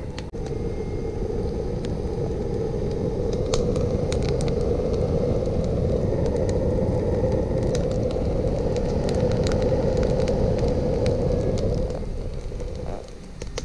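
Wood fire in a homemade steel rocket stove roaring under forced draught from a small 12-volt fan pushed right down into the air inlet, with sharp crackles from the burning wood. The noise eases briefly near the end.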